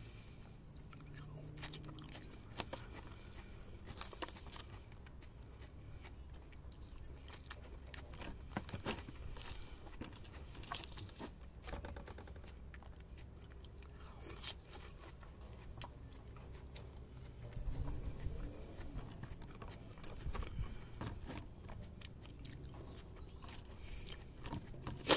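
Close-up chewing of crisp Caesar salad lettuce, with soft crunches and a few sharp clicks of wooden chopsticks against the plastic salad bowl here and there.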